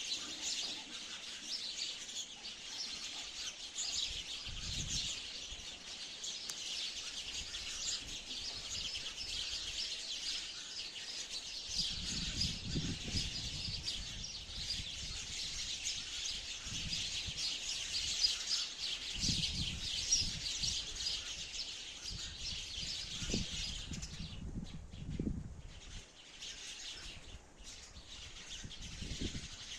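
Many sparrows chirping at once in a dense, unbroken chatter, thinning briefly about three quarters of the way through. Intermittent low rumbles sound underneath in the second half.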